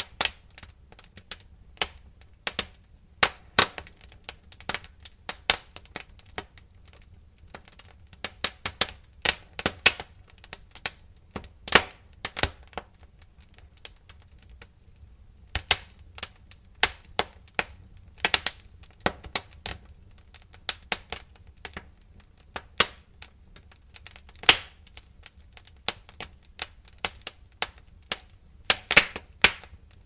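Wood fire in a fireplace crackling: irregular sharp pops and snaps, several close together at times, over a low steady rumble.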